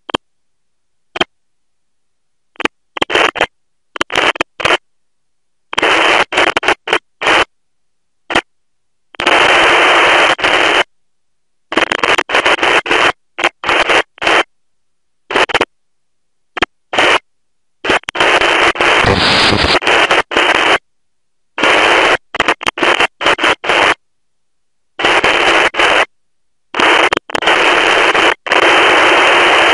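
Narrowband FM receiver hiss from an RTL-SDR on the 2-metre band, cutting in and out abruptly many times as the squelch opens and closes while the receiver is tuned across channels. The hiss runs in short stutters at first and then in longer unbroken stretches toward the end.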